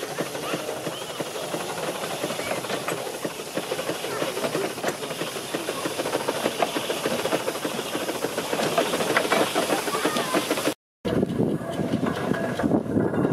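1927 Fowler DNA Class steam tractor on the move: steam hissing over a dense mechanical clatter from the running engine. The sound drops out for a moment near the end, then a second steam traction engine carries on with the same kind of hiss and rattle.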